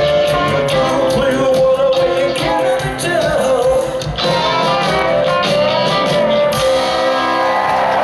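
Live rock band playing loudly: electric guitar and drum kit, with some singing. The drum hits stop about six and a half seconds in, leaving held guitar chords ringing on.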